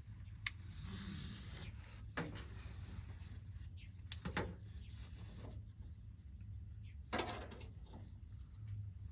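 A few short clicks and rattles from hand-tool work on an excavator's hydraulic hose fittings, spaced a couple of seconds apart, over a low steady hum.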